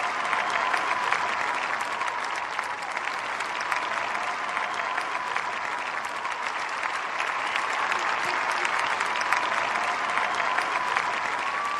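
Large audience applauding steadily: dense, overlapping hand claps at an even level.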